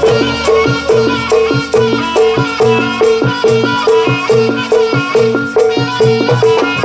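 Live traditional Javanese dance music: tuned percussion repeating a fast, steady pattern of short notes with drum strokes beneath.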